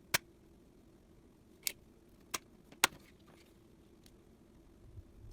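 Four sharp clicks and taps of small tools and parts being handled at a workbench during soldering work, spread over a few seconds, with soft low thumps near the end over a faint steady hum.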